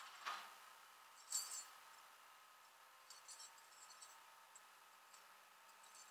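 Near silence with a faint steady high tone and a few faint clicks and clinks.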